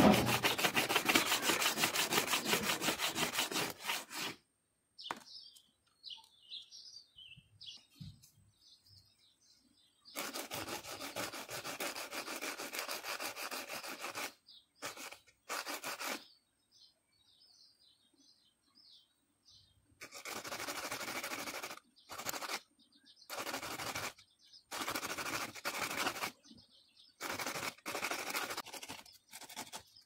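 A metal padlock part rubbed back and forth on sandpaper for about four seconds, the loudest sound here. Later come stretches and short bursts of scrubbing with a brush, with birds chirping in the pauses.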